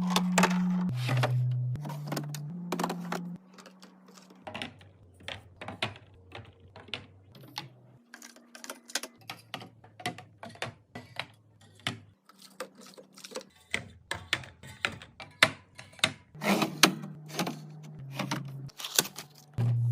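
Quick clicks and taps of items and containers being handled and set down while restocking, over soft background music with a low bass line.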